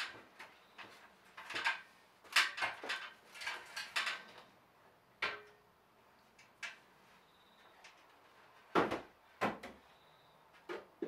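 Irregular clattering knocks and rustles of objects being handled, busiest in the first half, with two louder knocks a little over half a second apart near the end.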